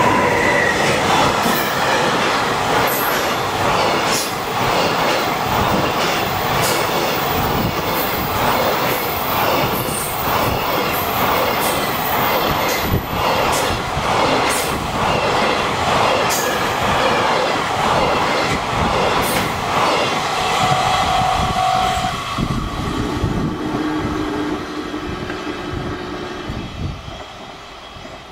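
Container freight train going by at speed behind an EF200 electric locomotive: wagon wheels clattering over the rail joints in a steady, loud run, fading over the last few seconds as the end of the train passes.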